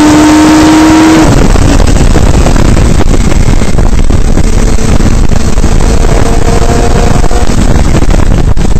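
Radical SR3's motorcycle-derived four-cylinder engine pulling in a rising tone until it cuts off abruptly about a second in as the throttle is lifted. After that comes heavy wind buffeting on the open-cockpit microphone, with the engine faint underneath.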